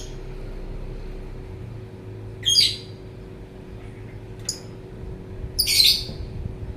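Lovebird giving shrill chirping calls: three separate bursts, a short one about a third of the way in, a brief one after that, and a louder, longer one near the end, over a steady low hum.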